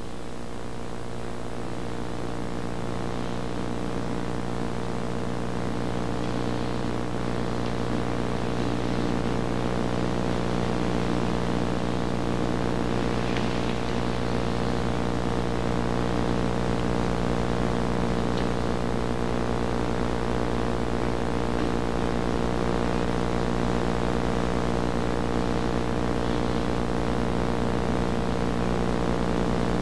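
A steady, even hum made of many fixed tones, slowly growing a little louder, with a few faint scratchy sounds over it.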